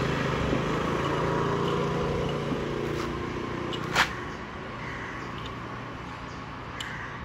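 A steady low engine-like hum that eases off about four seconds in, with one sharp click at that point and a few fainter ticks around it.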